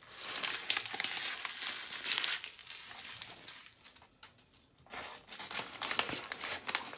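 Crinkling and crackling of a torn-open paper bag being handled. The crinkling eases off and nearly stops midway, then comes back with sharper crackles about five seconds in.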